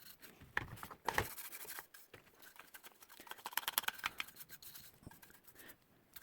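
Paint brush scrubbing greasy electronic parts wet with isopropyl alcohol: scratchy strokes and light clicks, with a quick run of rapid ticks a little past halfway.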